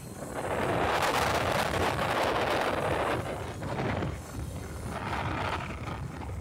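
Wind buffeting the microphone, with road noise, while riding an electric motorcycle. The rush is loudest for about the first three seconds, then eases and comes in gusts.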